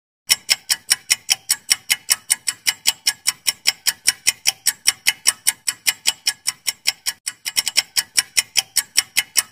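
Clock-ticking sound effect for a quiz countdown timer: sharp, even ticks about five a second, starting a moment in, with a brief quicker run of ticks about two-thirds of the way through.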